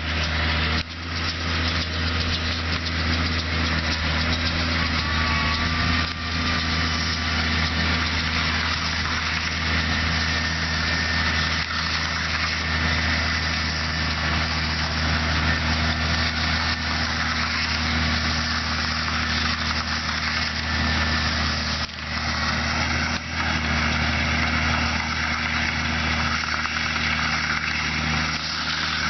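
Case IH Maxxum 140 tractor engine running steadily, with a brief dip in level about three quarters of the way through.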